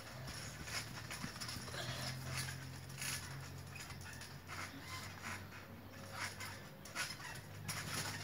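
Trampoline being jumped on: repeated irregular thuds and knocks from the mat and springs as a person bounces. A low steady hum sits underneath.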